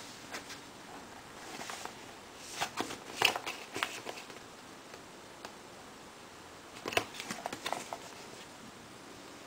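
Cardboard product box being handled and turned over in the hands: bunches of short taps, scrapes and rustles from fingers on the cardboard, strongest about three seconds in and again about seven seconds in, over a low room hiss.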